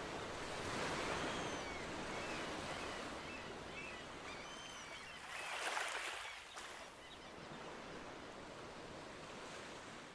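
Ocean waves washing onto a shore, rising and falling, with swells about a second in and a stronger, brighter one near six seconds. A few faint high chirps sound over the surf in the first few seconds.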